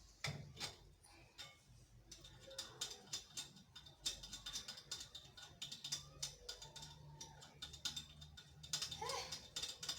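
Light, irregular metal clicks and clinks of a wrench working the wheel nuts on a car wheel during a tyre change, coming quicker from a few seconds in.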